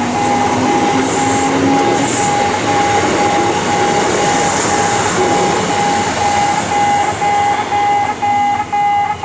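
Japanese railway level-crossing alarm ringing a single electronic tone about twice a second while a Kintetsu train passes with a dense rumble. Near the end a second, higher set of tones joins in.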